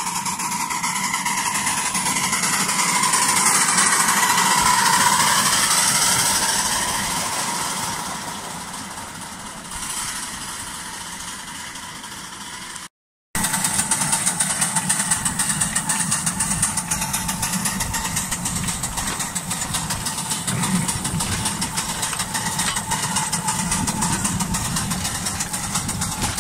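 A 7¼-inch gauge De Winton vertical-boiler miniature steam locomotive running along its track. It gets louder as it passes, about five seconds in, then fades. Later, right beside the moving loco, its running makes a steady, fast, even beat.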